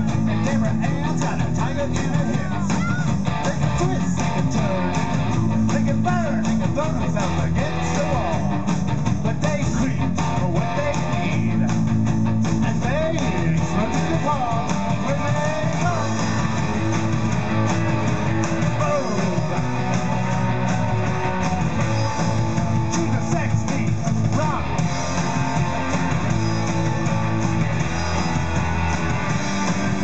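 Live rock band playing, with electric guitars and bass guitar to the fore.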